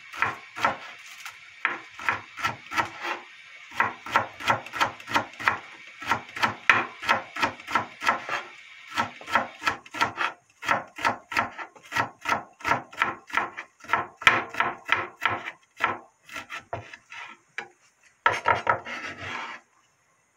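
Kitchen knife slicing a green onion on a bamboo cutting board: quick, even strokes, about four or five a second, with short pauses. Near the end, a brief rasping scrape as the blade sweeps the slices off the board.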